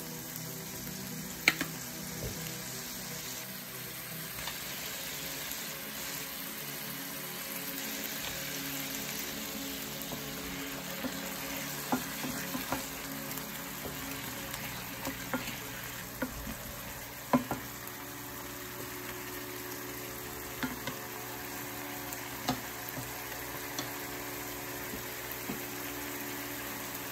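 Flaked salmon sizzling in a skillet as sauce is poured in and it is stirred with a wooden spatula, with scattered sharp taps of the spatula against the pan.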